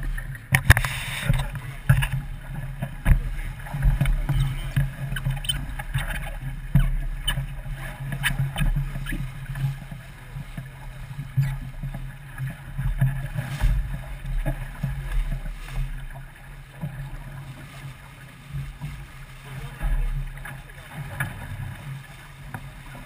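Boat under way: water splashing and slapping against the hull, with irregular knocks over a steady low rumble.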